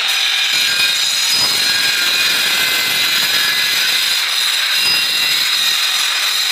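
Handheld electric power tool working on the granite window frame, running steadily at full speed with a loud, high-pitched whine.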